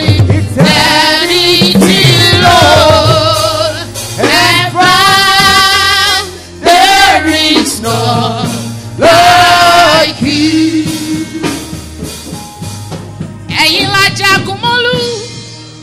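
Live gospel praise music: a lead melody in long phrases with vibrato over steady low sustained notes, easing off in loudness toward the end.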